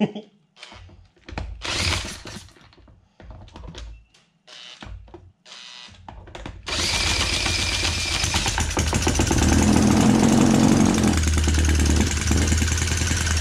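Small Webster model four-stroke engine being spun over with a cordless drill on its crank. There are several short bursts of the drill in the first six seconds. About seven seconds in, the drill spins it steadily, the engine catches, and it keeps running loudly and evenly on its own.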